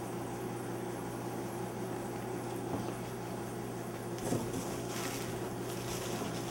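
Plastic packing wrap rustling and crinkling as hands dig into a cardboard box, strongest from about four to five and a half seconds in, over a steady low hum.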